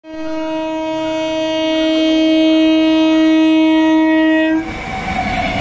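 An Indian Railways locomotive's horn sounds one long, steady blast of about four and a half seconds and cuts off. The rumble of the approaching train's wheels on the rails follows.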